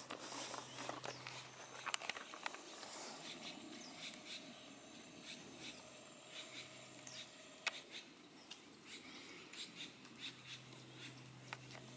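Faint outdoor ambience with scattered small clicks and ticks, a sharper click about two seconds in and another near eight seconds, and a faint low hum that comes and goes.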